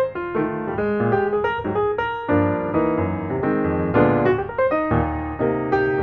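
Piano music: a steady run of notes and chords.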